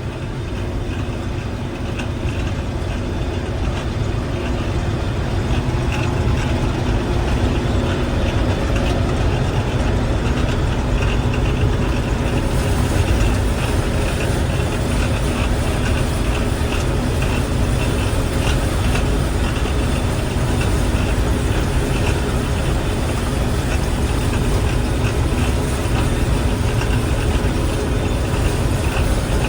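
Combine harvester running steadily while cutting wheat, heard from inside the cab: a constant low engine and machinery drone with a steady hum, growing a little louder over the first few seconds.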